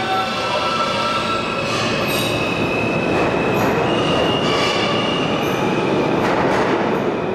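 A New York City Subway train pulling out of an underground station, running steadily, with high wheel squeals over the rumble of its wheels.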